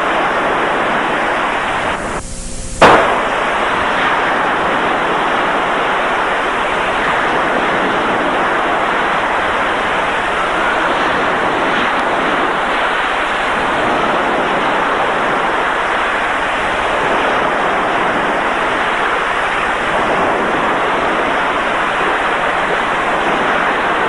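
Steady rushing noise of wind and surf on the microphone. About two seconds in it breaks off briefly and ends in one sharp, loud click.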